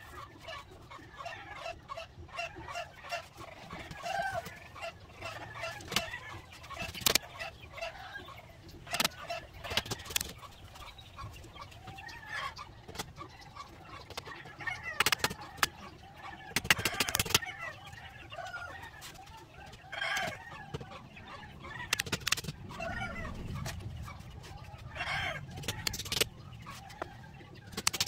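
Chickens clucking on and off. Scattered sharp knocks and taps from the bamboo being handled and fitted are the loudest sounds.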